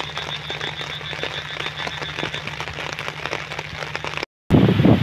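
Frogs calling: a rapid, evenly pulsed call, about six pulses a second, that fades out about halfway through, over scattered clicks and a low steady hum. Near the end the sound cuts out for a moment, then gives way to loud wind buffeting the microphone.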